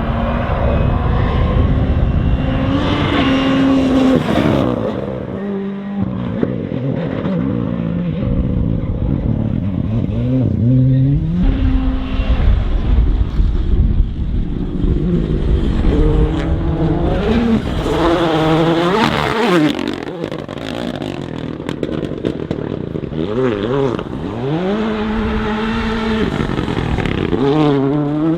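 Rally cars driven flat out on a stage: engines revving hard, their pitch climbing and dropping through gear changes and throttle lifts, with cars swooping past several times.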